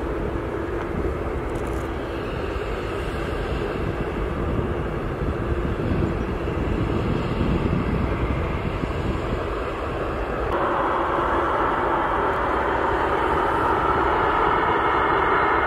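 Antonov An-225 Mriya's six turbofan engines running at taxi power: a steady jet engine rumble, with a higher whine growing louder about ten seconds in.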